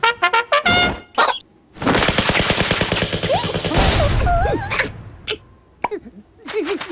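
Cartoon sound effects: a fast rattling clatter of knocks, like machine-gun fire, lasting about three seconds, with short squeaky gliding noises over it. Wavering squeaky cries follow near the end.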